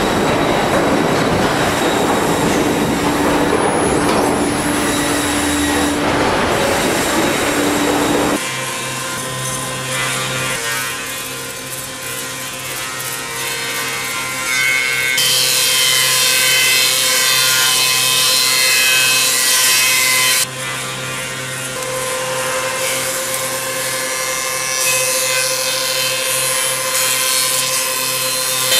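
Lumber mill machinery running, first a rough clattering conveyor noise, then after a sudden change the steady hum of a wood planer/moulder. A high hiss of boards being planed joins the hum, cuts off abruptly, and builds again near the end.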